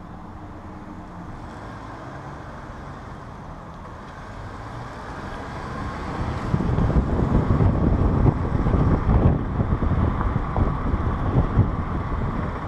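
Road noise inside a moving car, with a steady low rumble that grows louder about six seconds in, joined by gusty wind rumble on the microphone.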